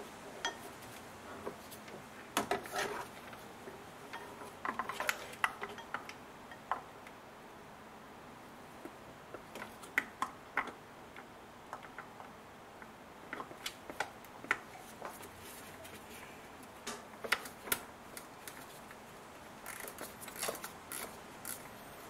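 Metal hand tools clinking and tapping against engine parts as screws are undone in a car's engine bay: scattered, irregular clicks, with a quicker run of clicks near the end.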